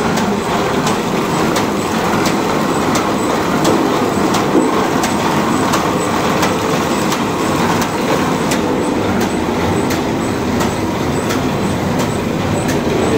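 Paper-bag making machine running steadily at full speed, a dense continuous mechanical clatter with regular clicks of its cycle a few times a second.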